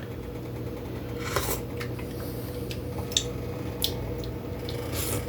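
A metal spoon clinking and tapping against a cooking pot, with about half a dozen short light clicks, over a steady low hum.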